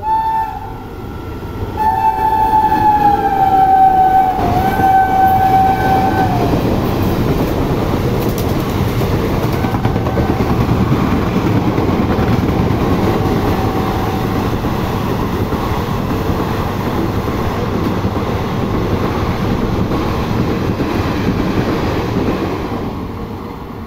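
Passenger train passing a station at speed without stopping: the locomotive's two-note horn sounds briefly at the start and then in one long blast of about four seconds, followed by the steady rumble and wheel clatter of the coaches rushing past, fading near the end.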